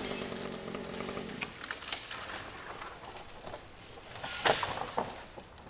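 An engine idling steadily, which cuts out about a second and a half in. Scattered clicks and knocks follow, with a sharp knock about four and a half seconds in.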